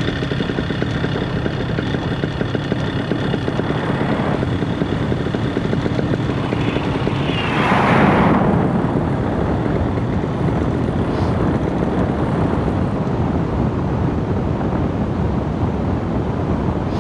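Paramotor engine and propeller running, with wind noise on the microphone. The engine's steady tone fades out after about seven seconds, a brief louder rush of noise comes about eight seconds in, and mostly wind noise is left after that.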